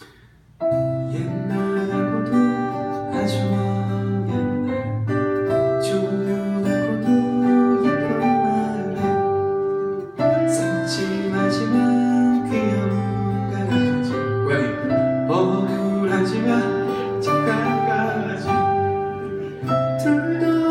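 Live song on two acoustic guitars with a man singing. The music starts about half a second in and breaks off for a moment about ten seconds in before carrying on.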